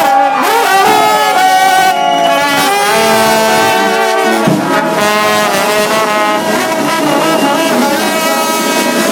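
Brass band playing loudly: held horn notes with several sliding, swooping notes.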